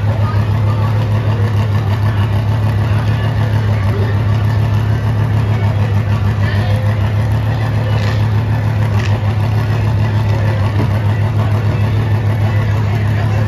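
Vehicle engines idling steadily, a loud, even low drone that holds without revving.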